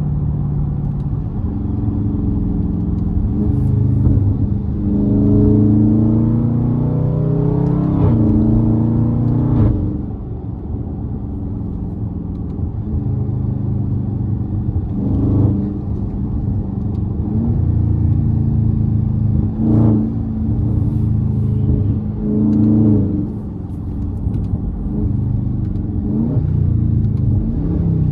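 Dodge Scat Pack's 392 HEMI V8 exhaust under hard acceleration, its note climbing in pitch and then dropping sharply at an upshift about ten seconds in. Several shorter rev rises and drops follow later on.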